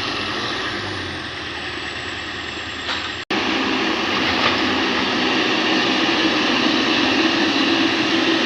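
Excavator engine running steadily under work. The sound breaks off for an instant about three seconds in and comes back louder.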